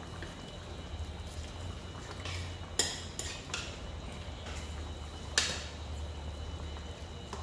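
Metal ladle clinking against a stainless-steel pot while stirring a braise: several sharp clinks, the loudest about three seconds in and another about five and a half seconds in, over a steady low hum.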